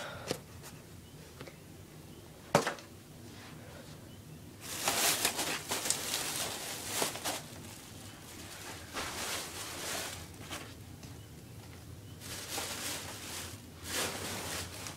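Rustling and handling noise from things being picked up and put away, in several bursts, with one sharp knock about two and a half seconds in.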